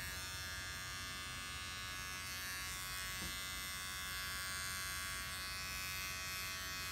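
Electric beard trimmer running with a steady, even buzz as it shaves the hair off a person's head.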